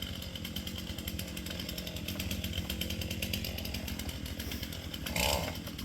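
Two-stroke chainsaw running steadily, with a brief louder sound about five seconds in.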